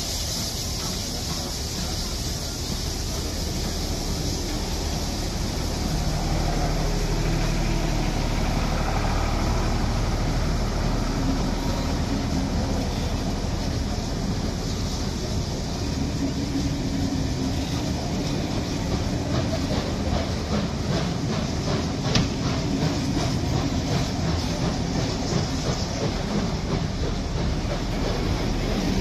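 Heritage passenger carriages rolling past on steel wheels: a steady rumble with rhythmic clicking of the wheels over the rail joints, plainer in the second half.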